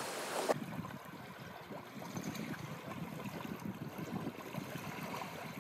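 Faint outdoor ambience: a soft hiss that changes abruptly about half a second in to a low, even rush with soft, irregular crackle.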